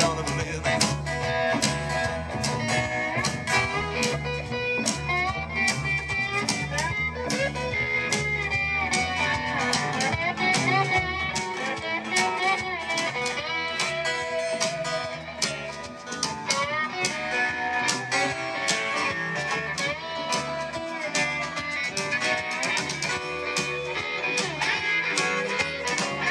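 Live country band playing a dance number, guitar to the fore over upright bass and drums, with a steady beat.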